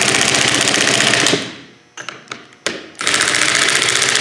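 3/8-inch impact wrench hammering closing-wheel bolts tight in two bursts. The first stops about a second and a half in, then come a few short knocks, and the second burst starts near the end.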